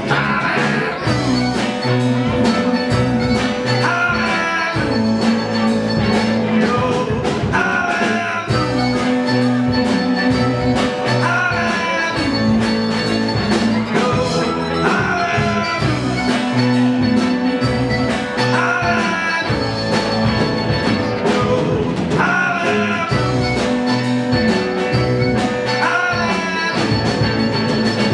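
Live folk-rock band playing loudly: electric guitar, mandolin, bass guitar and drum kit together. A riff recurs every few seconds over a steady beat.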